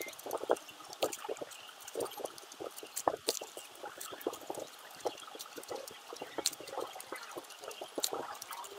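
Giant panda chewing a fresh bamboo shoot: irregular crunches and snaps, several a second, as it bites and chews.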